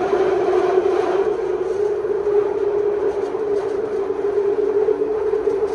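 Interior running noise of a London Underground Central line 1992 Stock train under way: a steady loud hum over the rumble of wheels on rails.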